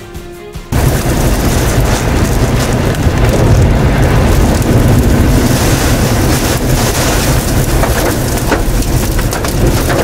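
Muddy floodwater rushing in a flash-flood torrent: a loud, steady wash of water noise that starts suddenly about a second in.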